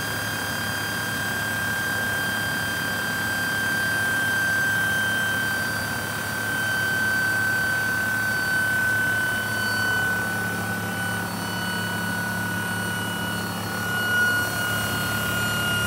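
IHI Dynajet 2.6 micro gas turbine generator running steadily: a high turbine whine over a jet-like rushing noise and a low hum, the whine drifting slightly lower.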